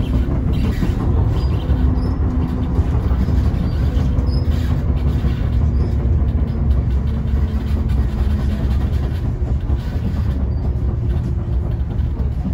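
Train running on the rails: a steady, heavy low rumble with faint hum and a few light wheel clicks.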